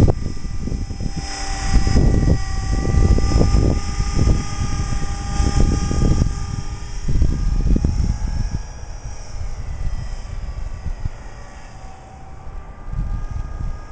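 Electric 500-size RC helicopter (CopterX CX 500 SE) in flight: a steady motor and rotor whine that wavers slightly in pitch. Heavy wind gusts buffet the microphone and ease off for a while after the middle.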